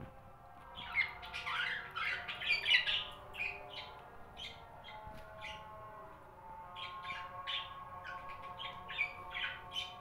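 Budgerigars chirping and squawking in short, rapid calls, thickest in a chattering flurry about one to three seconds in, then scattered chirps for the rest.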